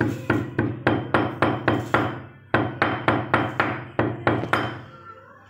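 A steel cylinder repeatedly striking soaked chickpeas on a stone counter to flatten them into chana jor garam: quick knocks about five a second, in two runs of about ten strikes with a short pause between them.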